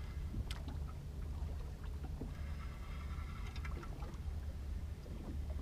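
Spinning reel being cranked in short spells, a faint whirr, as a hooked European perch is reeled in. A low steady rumble and a few light clicks sit underneath.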